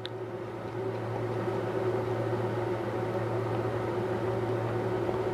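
Steady low mechanical hum, like a fan or motor running, getting slightly louder after the first second.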